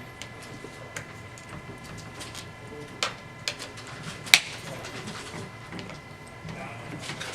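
Allen key and small screws clicking and tapping against metal as the last screws are worked out of the Xiaomi Ninebot Mini's handle mount. There are a few sharp clicks among fainter ticks, the loudest about four seconds in.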